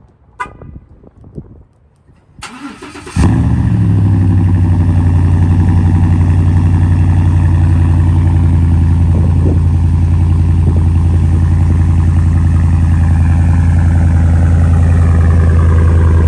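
Cold start of a 2014 Ford SVT Raptor's 6.2-litre V8 through a cat-back exhaust with a Flowmaster muffler and no resonator. A few quiet clicks come first, then the starter cranks briefly. The engine catches loudly about three seconds in and settles into a steady, deep idle.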